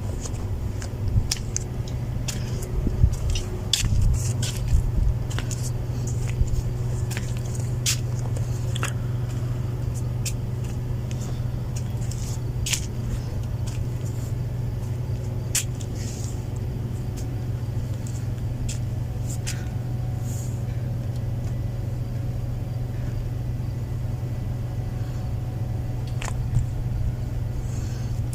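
A steady low motor hum, with scattered sharp clicks and a few low knocks in the first five seconds.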